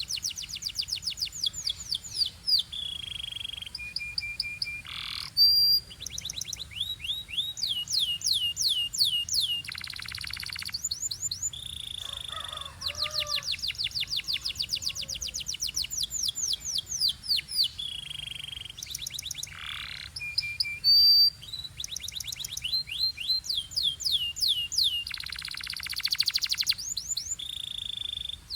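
Belgian canary singing: fast trills of repeated falling whistled notes, broken by held single-pitch whistles and buzzy rolls.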